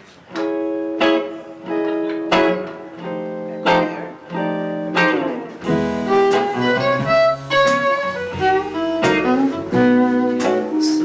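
Live band playing the instrumental intro of a song: acoustic guitar strumming chords, with more of the band coming in about halfway through and filling out the low end.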